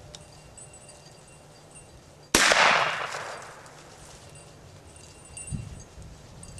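A single shotgun shot about two seconds in, sharp and loud, its report echoing and fading over a second or so. It is a hunter's shot at a cottontail rabbit.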